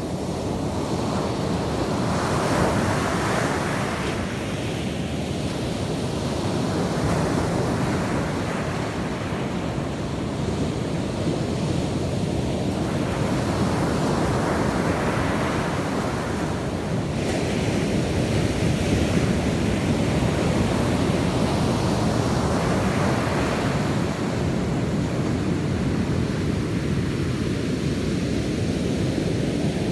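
Ocean waves breaking on a beach, the surf swelling every few seconds, with wind buffeting the microphone.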